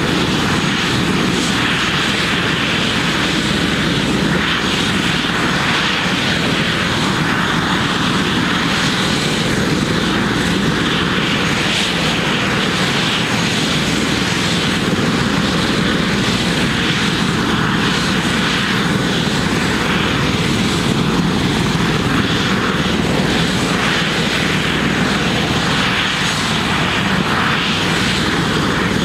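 Airbus H145 police helicopter running on the ground with its turbines and main rotor turning, giving a steady, unchanging turbine whine and rotor noise.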